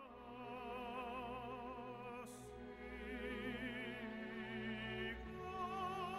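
Quiet classical background music, a melody of sustained notes with vibrato.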